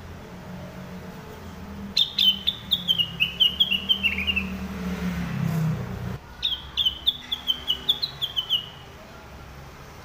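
Orange-spotted bulbul (cucak rengganis) singing two phrases of quick, bright notes that step down in pitch, one starting about two seconds in and one about six seconds in. A low hum underneath stops about six seconds in.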